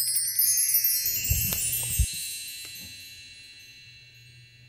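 Shimmering metal chimes swept in a quick rising run, then ringing on and slowly fading away over about three seconds. Two soft low thumps come in the middle.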